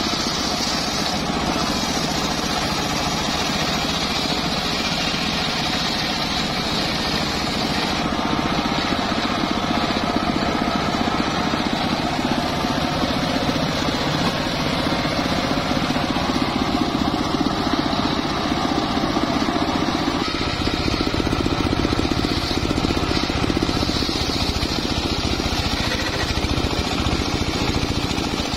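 Engine-driven homemade table circular sawmill running steadily, with its blade sawing a teak log; the sound grows heavier and lower from about two-thirds of the way in as it works through the cut.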